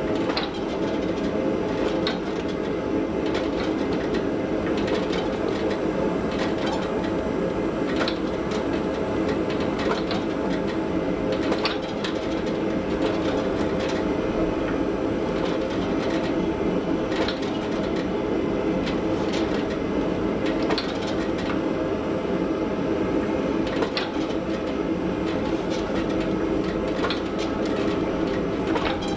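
Steady machine hum running throughout, with scattered light clicks and taps over it.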